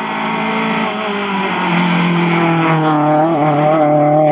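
Competition car engine running hard at high revs. Its pitch steps down about two seconds in, wavers briefly near three seconds, then holds steady.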